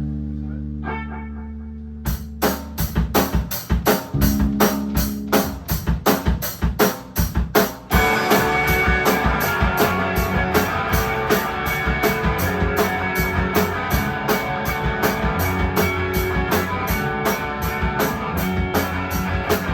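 Instrumental intro of a guitar rock song: a guitar chord rings, then drums come in with a steady beat about two seconds in, and the full band with electric guitars kicks in about eight seconds in.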